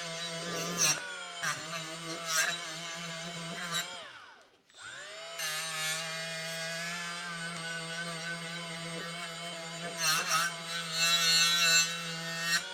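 Electric power-tool motor cleaning a paint scraper blade: it runs with a steady whine, winds down and stops about four seconds in, spins back up about a second later, and winds down again at the end. Short scraping bursts come each time the blade is pressed to the tool, loudest near the end.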